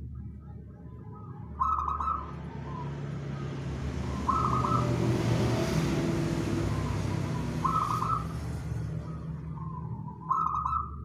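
Zebra dove (perkutut) cooing: four short coo phrases about three seconds apart. Behind them, the noise of a passing vehicle swells and fades through the middle.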